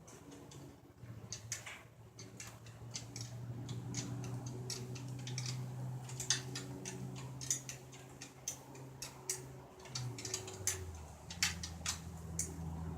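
Scattered light clicks of a hand wrench being worked on a fastener, one to a few a second, over a low steady hum that drops in pitch about ten seconds in.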